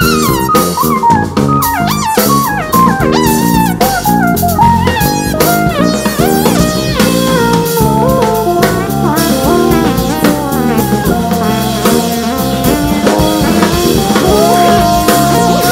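Live jazz quartet playing: saxophone, keyboard, electric bass and drum kit with cymbals. The lead line runs quickly up and down at first, then settles into longer held notes about halfway through.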